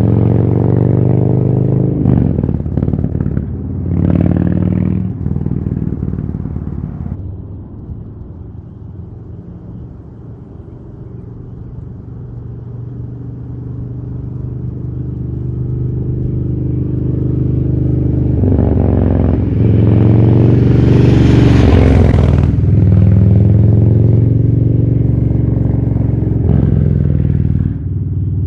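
Harley-Davidson Street Bob's V-twin running through a FAB28 exhaust pipe, revving with a couple of short throttle blips early on. The sound fades as the bike moves away, then grows louder as it comes back, with a hard rev about two-thirds of the way through.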